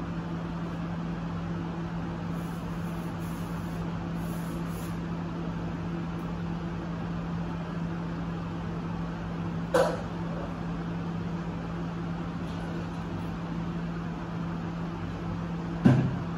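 A steady low hum over a constant hiss of room noise, with two sharp knocks, one about ten seconds in and a louder one near the end.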